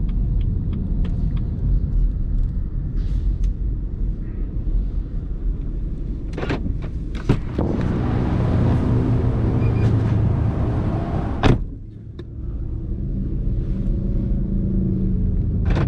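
BMW 1 Series (F20) hatchback on the move: steady engine and road noise, louder for about four seconds in the middle. A few sharp clicks come around then, the last one just before the sound briefly drops.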